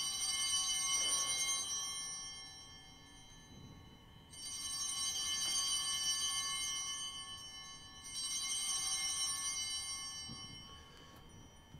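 Altar bells rung three times for the elevation of the chalice at the consecration: a bright ring of several high-pitched bells at the start, again about four seconds in and about eight seconds in, each fading over a few seconds.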